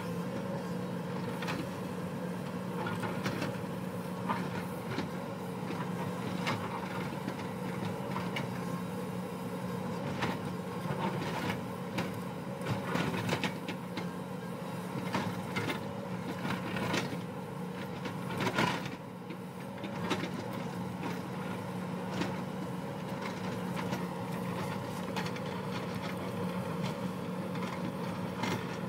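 Hyundai 220-class crawler excavator's diesel engine running steadily under load while its bucket scrapes and knocks against rock and earth on a cut face, with irregular clanks and scraping throughout and one louder knock about two-thirds of the way in.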